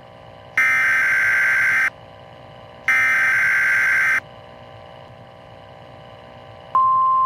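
EAS SAME header data bursts: two short blasts of rapid two-tone digital data, about a second apart. A faint steady hum sits between and after them. Near the end, a steady NOAA Weather Radio 1050 Hz warning alarm tone begins.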